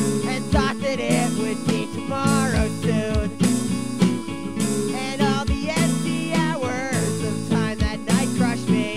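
Music: a lo-fi folk punk demo recording with guitar, a wavering melodic line and a steady low drum beat.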